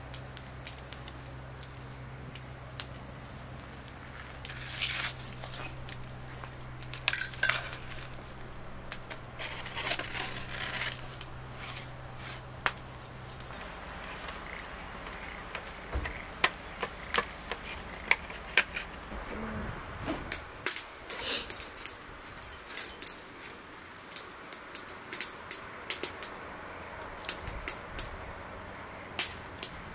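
Kitchen knife cutting a pizza in an aluminium foil tray, with scattered light clicks, knocks and scrapes of the blade, the tray and plates. A low steady hum runs through the first half and stops about halfway.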